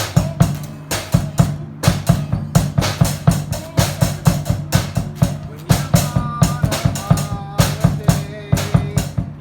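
Rock music led by a drum kit: kick, snare and cymbal hits in a steady beat, a few a second, over bass, with some held higher notes about two-thirds of the way through.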